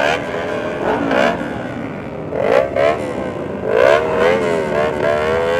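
Sport motorcycle engines idling and being revved in quick rising throttle blips, several times over, with one held at steady high revs for a moment near the end.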